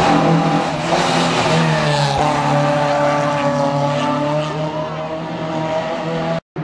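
Rally car engine running hard on a special stage, a steady loud note that dips slightly in pitch about two seconds in and then holds; it cuts off abruptly near the end.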